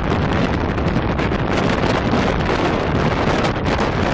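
Strong wind blowing across the open deck of a cruise ship in a storm, buffeting the microphone with a loud, steady rush.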